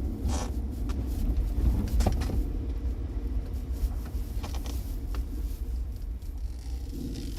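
Jeep Wrangler JK engine running steadily, mostly low in pitch, with a few faint clicks: the motor noise the owner finds weird.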